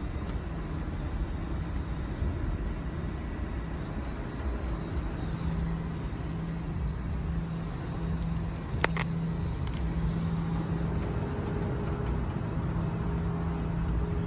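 Steady rumble and hiss of engine and air noise inside a private jet's cabin, with a low hum that comes and goes. A single sharp click about nine seconds in.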